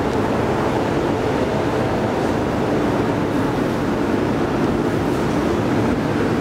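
Steady rumble of a metro train alongside the platform, mixed with the general noise of a busy metro station.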